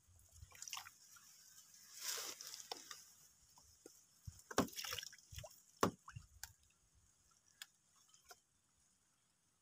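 Faint water sloshing and dripping as a person lowers himself into shallow river water at the bank. A soft splashy hiss comes about two seconds in, then a scatter of small sharp splashes and clicks, dying away near the end.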